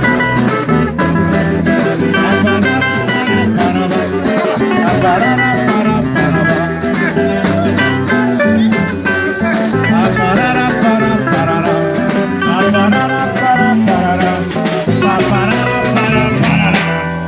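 Band playing the instrumental passage of a Cape Verdean song, led by plucked guitar, with no singing.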